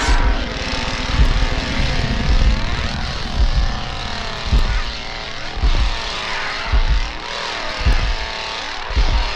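A loud, continuous engine-like drone that rises and falls in pitch, with a heavy low thud about once a second.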